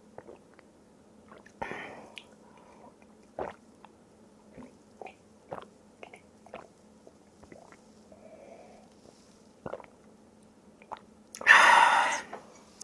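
Quiet chewing with scattered soft mouth clicks, then near the end a loud, breathy sound from drinking out of a mug.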